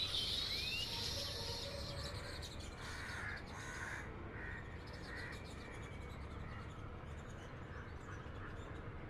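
Birds calling: a couple of short rising calls at the start, then a run of harsh calls around three to five seconds in that fades to fainter calling over a steady low background noise.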